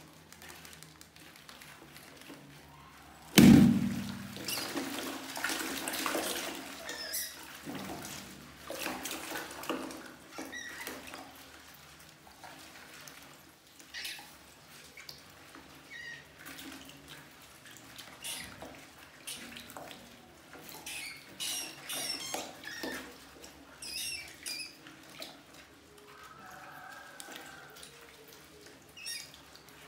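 A rubber balloon stretched over a bucket of water bursts with a sharp bang about three and a half seconds in, springing a bucket rat trap and dropping a group of rats into the water. After it come the rats splashing and scrabbling in the water, with scattered short high squeaks.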